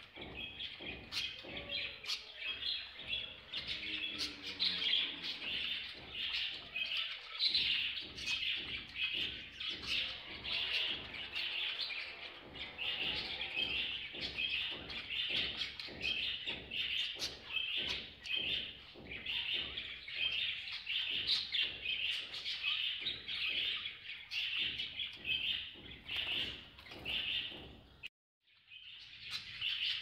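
Budgerigars chattering and chirping rapidly without a break, with a short dropout near the end.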